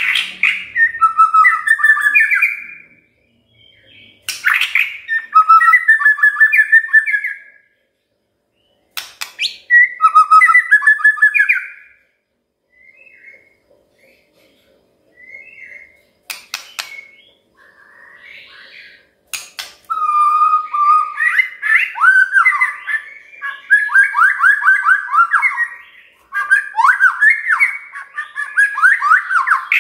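White-rumped shama (murai batu) singing: loud phrases of whistles and fast chattering notes, each phrase starting sharply. The phrases come with short pauses in the first third, then a quieter stretch of scattered soft notes, then nearly continuous rapid song for the last third.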